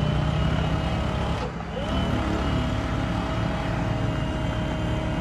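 Excavator running steadily while its hydraulic plate-compactor attachment vibrates down on loose soil, a steady low machine hum with a high whining tone over it; the sound dips briefly about a second and a half in.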